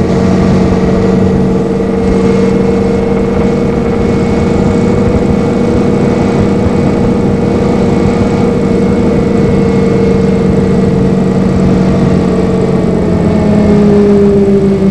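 A 2002 NABI 40-LFW transit bus running, its cooling fan whining steadily and loudly over a faint Detroit Diesel Series 50 engine. Near the end the whine drops in pitch.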